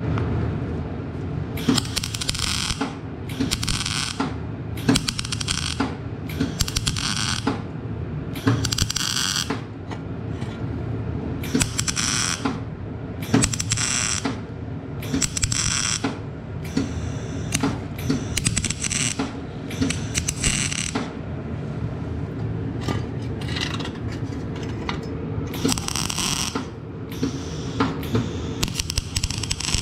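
MIG welding torch arc crackling steadily on an exhaust pipe joint, with a brighter hiss that swells and fades every second or so.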